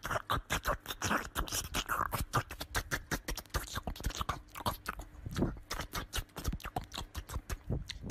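A small dog's claws tapping and scratching on a wooden door as it bounces on its hind legs: a dense, uneven run of quick clicks and scrapes.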